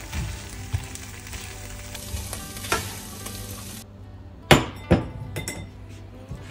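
Spatula stirring and scraping cooked chana dal in a hot non-stick pan, with a light sizzle. About four and a half seconds in, two sharp knocks half a second apart as a glass bowl is set down on the glass cooktop, then lighter clinks as a metal mesh strainer goes into it.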